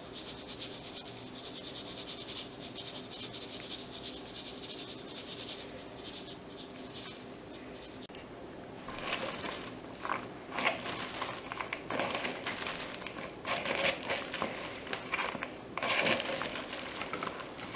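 Salt poured onto shredded red cabbage, a fine hiss of grains for about eight seconds. Then hands toss and squeeze the cabbage shreds to mix in the salt: crisp crunching rustles in uneven bursts.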